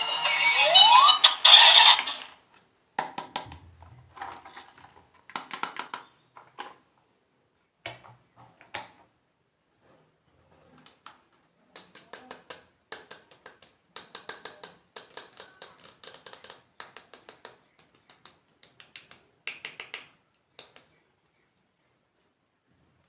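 Electronic toy sound effect, beeping tones with a rising sweep, that cuts off about two seconds in. It is followed by scattered clicks, taps and light crinkles of plastic toys and packaging being handled, in short clusters with pauses between.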